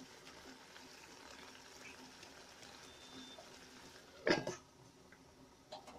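A pot of pork curry simmering faintly. About four seconds in, a stainless steel lid clanks down onto the pot with a brief ring, followed by a lighter knock near the end.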